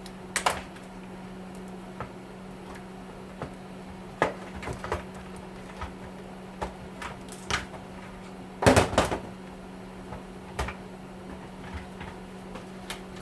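Scattered clicks and knocks of plastic and metal parts being handled and pried during the teardown of an electric heater, with a louder burst of clattering about nine seconds in.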